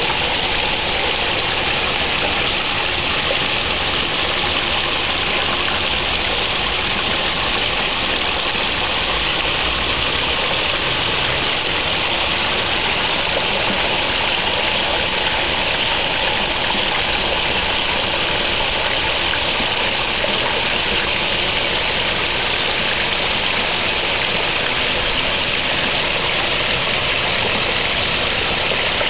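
Steady rush of water splashing into a garden pond from its water feature, unchanging throughout.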